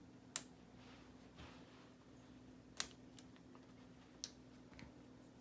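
Sharp plastic clicks of K'nex connectors being unsnapped and snapped back while wheels are slid off a K'nex model trailer: a few separate clicks, the loudest about half a second and three seconds in, with fainter ticks between, over a faint steady hum.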